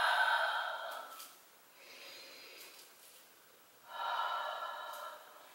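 A woman's deep audible breaths as she moves through yoga poses in time with her breathing: two loud breaths of about a second each, one at the start and one about four seconds in, with a fainter breath between them.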